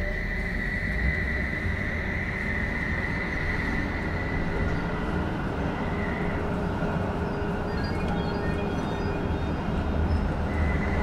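Rhein-Neckar-Verkehr M8C-NF tram under way, heard on board: a steady rumble of wheels on rail under the high whine of its modernised VVVF inverter drive. The whine fades about six seconds in, and several short higher tones come and go near the end.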